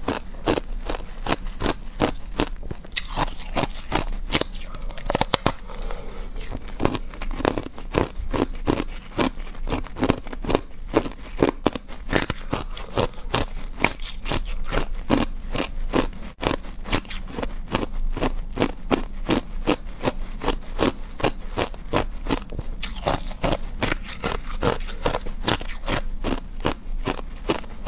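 Hard ice being bitten off a column and chewed, a steady run of crisp crunches at about four a second.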